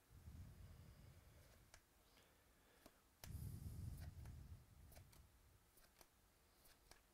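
Faint clicks and flicks of 2018 Bowman baseball cards being slid one by one off a stack by hand, with soft low handling bumps twice.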